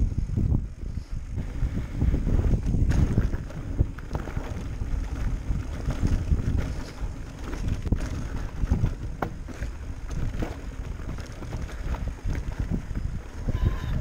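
Wind buffeting the microphone over the rumble of an electric mountain bike rolling along a dirt trail, with frequent small clicks and rattles from the bike over rough ground.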